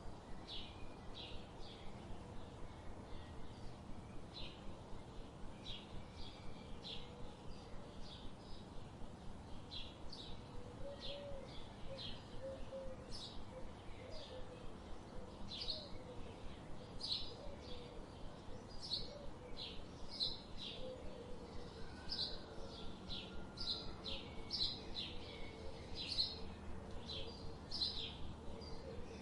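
Small birds chirping: a steady run of short, high chirps, about two a second, with a fainter low warbling call now and then underneath.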